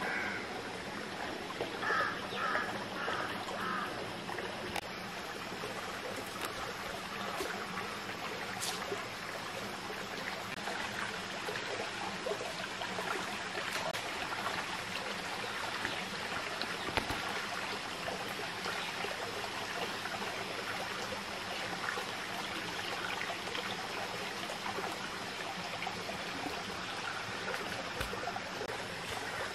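Small forest stream flowing and trickling over rocks, a steady rush of water. About two seconds in there are four short, high chirps in quick succession.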